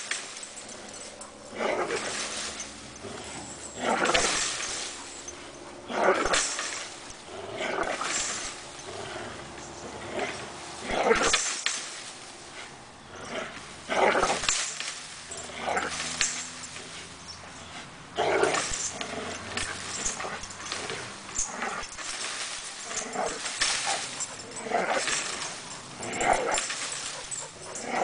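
Pit bull terriers vocalising in short repeated bursts, about one every one to two seconds, as one hangs from a springpole rope and another jumps at it.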